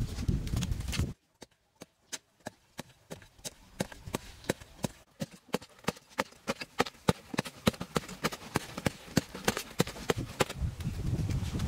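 A digging tool chopping repeatedly into dry, stony soil: a long run of sharp strikes, several a second, getting busier toward the end. It starts after a brief break of near silence.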